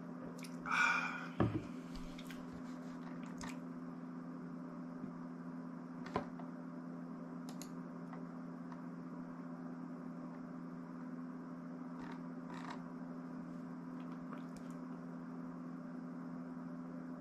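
Quiet room tone with a steady low electrical hum, broken by a brief rustle and a knock about a second in and a few faint clicks later.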